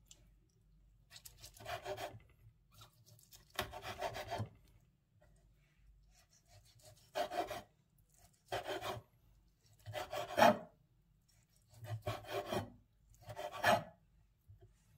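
Chef's knife slicing cooked chicken breast into cubes on a wooden cutting board: about seven short cuts, each a brief scrape of the blade through the meat and onto the board.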